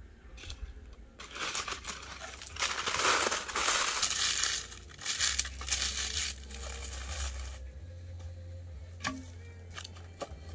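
Dry leaves crackling and crumpling as they are handled and packed in as kindling, loudest for a few seconds in the middle, followed by a few small clicks near the end.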